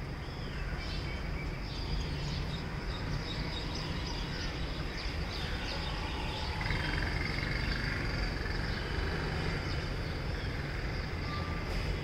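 Outdoor background: a steady low rumble and a steady high whine, with scattered short bird chirps.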